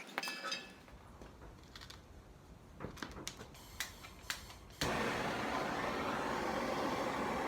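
Homemade propane forge burner lighting almost five seconds in and running with a steady, loud rushing hiss. Before it lights come a few sharp clicks and clinks.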